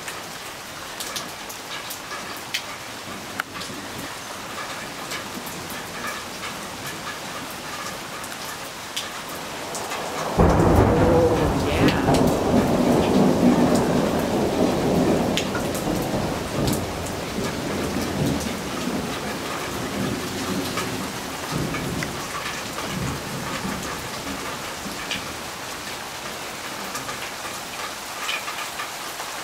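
Steady rain falling. About ten seconds in, thunder breaks in suddenly as a loud, low rumble that slowly dies away over some ten seconds, while the rain goes on.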